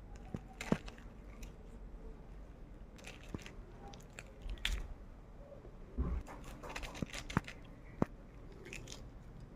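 Close-up eating sounds: biting and chewing crisp food, with scattered sharp crunches and clicks.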